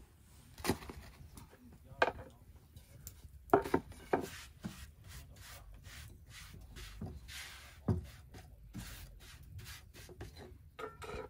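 Irregular sharp knocks with scraping and rubbing between them, as hard objects are handled and worked; a few knocks stand out, the loudest about three and a half seconds in.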